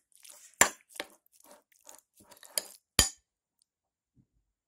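A spoon stirring chopped onion, herbs and adjika into mashed avocado in a bowl: soft wet scraping with several sharp clinks of the spoon against the bowl, the loudest about three seconds in. Then the stirring stops.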